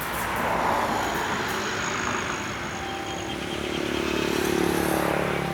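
A vehicle engine running. The sound swells about a second in, eases, then builds again with a steady engine note that peaks near the end.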